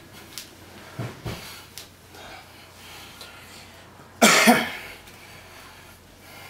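A man's short double cough about four seconds in, during a pause in a set of bodyweight squats. A couple of soft low thumps come a little after one second in.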